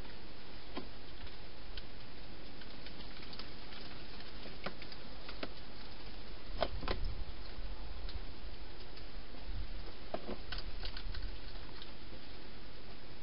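A hedgehog eating inside a clear plastic feeding box: scattered, irregular crunching clicks, a few louder ones about seven and ten seconds in, over a steady hiss.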